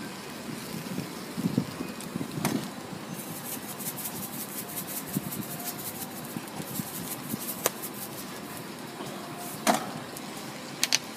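Thin crepes sizzling on a hot flat-top griddle: a steady hiss with fine crackling that thickens about three seconds in. A few sharp metal clicks from the utensils and seasoning shaker against the griddle.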